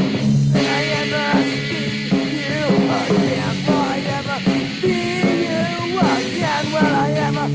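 Lo-fi punk/ska band demo recording: electric guitar, bass and drums playing with a singer's wavering vocal line over the top, and a cymbal-like crash about half a second in.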